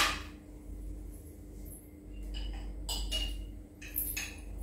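Metal cookware and utensils clinking and knocking at a kitchen stove: a sharp knock at the start, then a few metallic clinks with short ringing about two and a half to three seconds in and again near the end, over a steady low hum.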